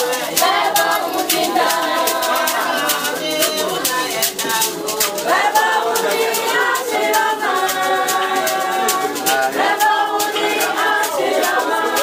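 Voices singing together, with a shaker rattle keeping a steady beat.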